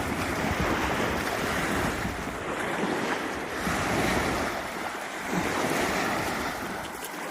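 Ocean surf breaking on the beach, rising and falling in swells, with wind buffeting the microphone.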